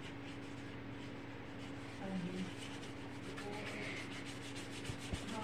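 A flat paintbrush rubbing poster colour across paper in repeated strokes, over a steady low hum, with a small knock about five seconds in.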